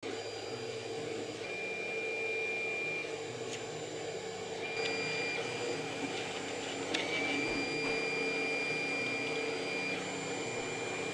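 FDM 3D printer printing: its stepper motors whine in tones that shift and switch every second or so as the print head and bed move, over the steady hiss of its cooling fans, with a few faint clicks.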